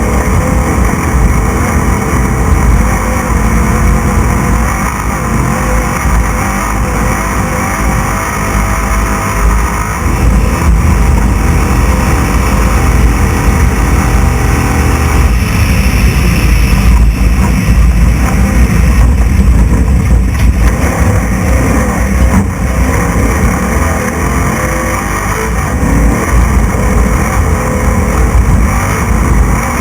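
Onboard sound of a 6100-class desert race truck running at race speed, its engine note rising and falling over a heavy low rumble.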